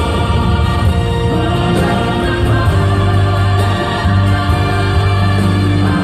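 Many voices singing a hymn together in held notes over instrumental accompaniment with a strong, sustained bass line.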